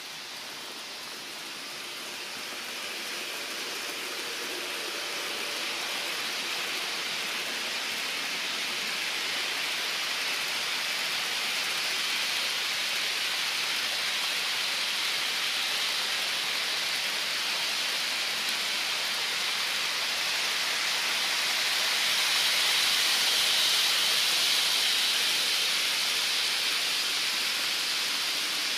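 HO scale model trains, Rivarossi U-boat diesels hauling ore cars and freight cars, running on sectional track close by: a steady hiss of rolling wheels and motors. It grows louder as the trains pass near, loudest a little past two-thirds of the way through, then eases slightly.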